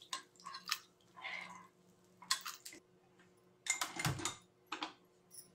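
A metal spoon clinking and scraping against a non-stick kadai and a steel bowl as fried chana dal and green chillies are scooped out: a handful of light clicks and short scrapes with pauses between. A louder clatter of pan and stove comes about four seconds in.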